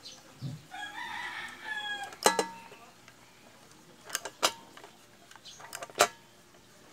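A rooster crows once in the background about a second in. Then a hand riveter works a pop rivet in galvanized steel sheet, giving sharp metallic clicks: a loud one about two seconds in, two closer together past the middle, and another loud one near the end.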